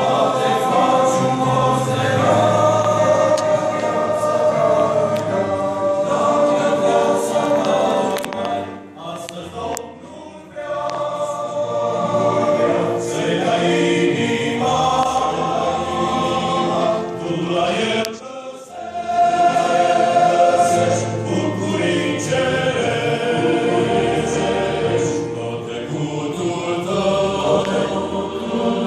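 Church choir singing a hymn, with two brief pauses between phrases about nine and eighteen seconds in.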